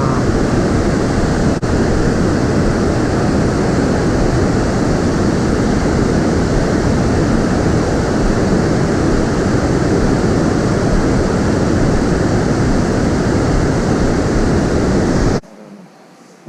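Steady rush of a waterfall in torrent, swollen by heavy rain. It cuts off suddenly near the end.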